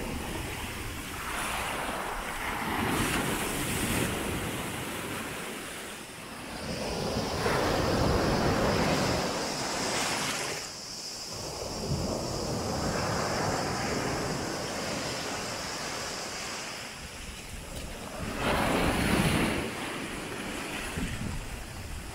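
Sea waves breaking and washing up a pebble-and-sand beach, surging in several swells, loudest near the middle and again near the end, with wind buffeting the microphone.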